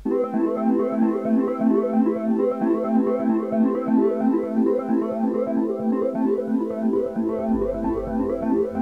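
Background music with quick repeated keyboard-like notes; a deep bass line comes in near the end.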